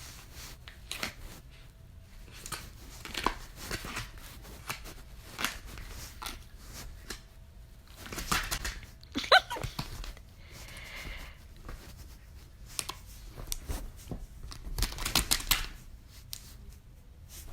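Close, scattered rustling and crinkling with small clicks, like tearing and handling of paper or fabric, with a short squeak about nine seconds in.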